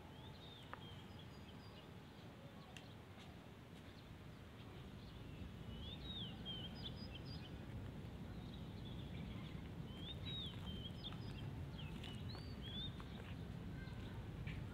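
Small birds chirping in several short clusters of quick, sliding calls over a low steady background rumble, which grows a little louder about a third of the way through.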